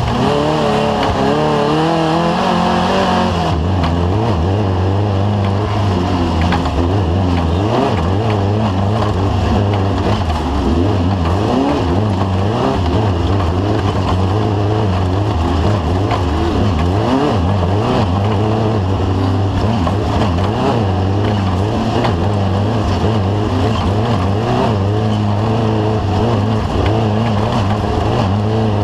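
Off-road race vehicle's engine running hard, its revs rising and falling constantly, over steady road and wind noise.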